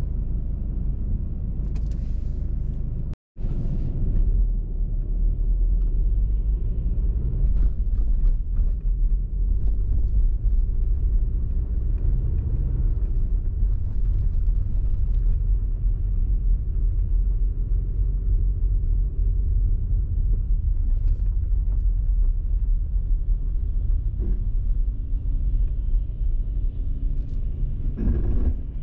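Steady low rumble of a car driving, from its engine and tyres on the road. The sound cuts out completely for a moment about three seconds in.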